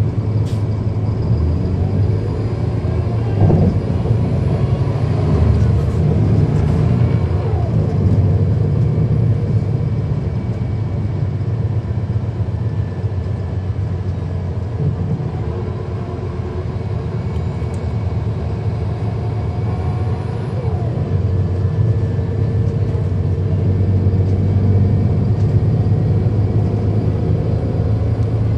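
Cummins ISL9 inline-six diesel engine of a 2010 NABI 40-SFW transit bus running, heard from inside the bus along with road noise, a steady low drone whose pitch rises and falls in places.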